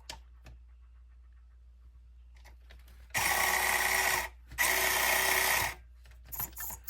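Axial SCX24 micro crawler's small electric motor and gear drive running in two short bursts of just over a second each, a steady mechanical whine, about three seconds in. Light clicks from handling near the end.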